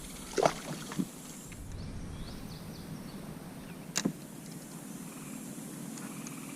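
A few sharp knocks and clicks from handling in a kayak, about half a second, one second and four seconds in, the last the loudest, over steady low wind and water noise.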